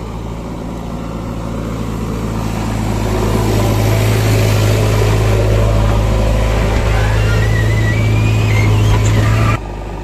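JCB 3DX backhoe loader's diesel engine, heard from inside the cab, running and growing louder about three seconds in as the backhoe controls are worked. A thin wavering squeal comes in near the end, and the sound cuts off suddenly just before the end.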